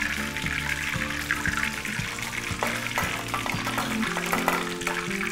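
Hot oil sizzling in a wok as deep-fried wontons drain above it in a wire spider strainer, with a few light clicks, under background music with held notes.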